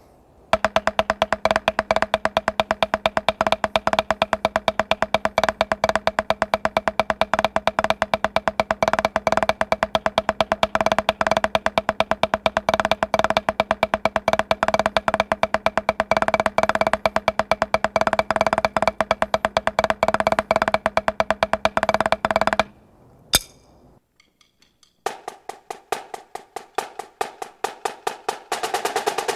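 Drumsticks playing a 16th-note roll exercise on a Dynasty practice pad laid on a marching snare drum: a dense, even stream of rapid strokes that stops about 22 seconds in. After a short gap, a line of marching snare drums starts a pattern whose strokes come faster and faster until they run into a roll near the end.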